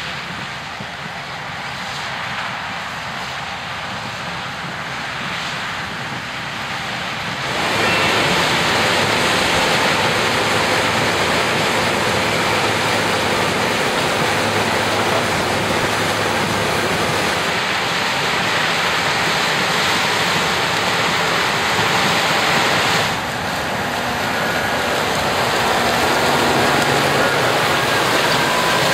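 Harvesting machinery running, most likely a combine harvester working corn: a dense, steady mechanical noise that gets louder about seven seconds in and dips briefly a little after twenty seconds.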